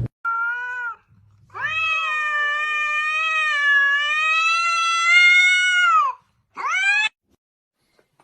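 A cat meowing three times: a short meow, then one long drawn-out meow lasting about four and a half seconds, then a short meow that rises in pitch.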